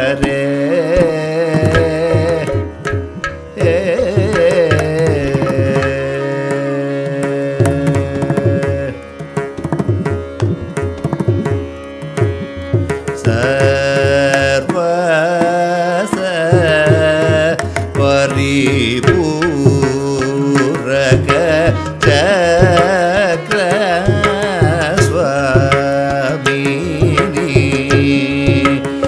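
Carnatic classical music: an ornamented melody with gliding notes over mridangam strokes, with a long held note about six seconds in. The percussion thins out briefly a few seconds later, then the full ensemble plays on.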